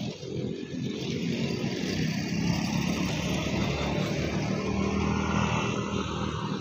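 Motorcycle or motor scooter engine passing on the road, a low drone that grows louder about a second in, holds, and falls away near the end.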